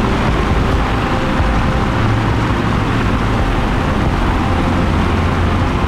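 Volcanic gases jetting out of a glowing fumarole vent: a loud, steady rushing noise that is heaviest at the low end.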